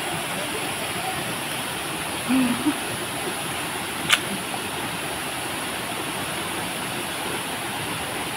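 Waterfall pouring into a rocky pool: a steady, even rush of falling water. A short low sound comes about two seconds in, and a single sharp click about four seconds in.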